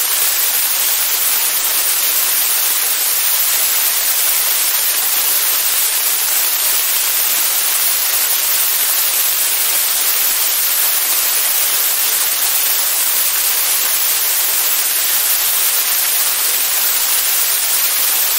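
Steady, loud rush of slipstream wind over a camera mounted outside on a light aircraft's engine cowling in cruise, an even hiss with no distinct engine tone.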